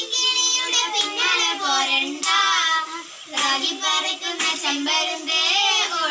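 Young girls singing a song, with long held notes that bend in pitch and a short pause between phrases about three seconds in.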